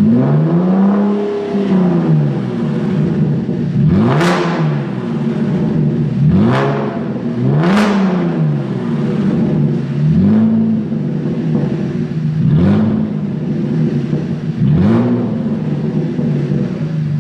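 Chevrolet Camaro V6 exhaust fitted with Armaflow M30 sports mufflers, revved from idle in about seven short throttle blips. Each rev rises and falls in pitch, with the engine idling steadily between them.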